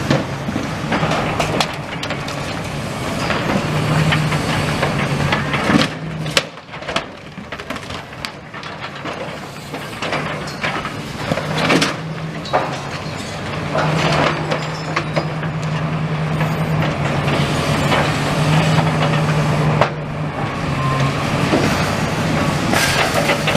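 Demolition excavator's diesel engine running with a steady hum that swells and eases, while its grab crunches through a brick wall and rubble drops in repeated crashes and knocks.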